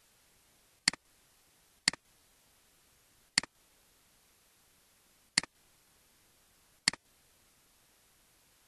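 Computer mouse clicking five times, a second or two apart, each click a sharp press followed at once by a softer release.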